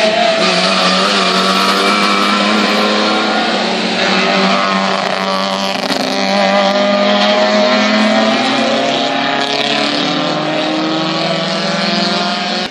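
A small-engined hatchback race car's engine revving hard, its pitch climbing and dropping repeatedly as it accelerates and changes gear through the corner.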